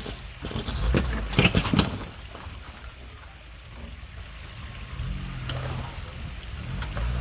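Low engine rumble with a few sharp knocks and clatters about one to two seconds in, and a low drone rising in level from about five seconds in.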